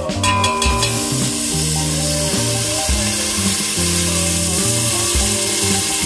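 Food sizzling in a hot pan, starting about a second in and continuing steadily, over background music with a steady bass line.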